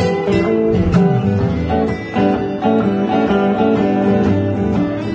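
Acoustic and electric guitars playing a blues instrumental passage together, with picked notes over a steady bass line.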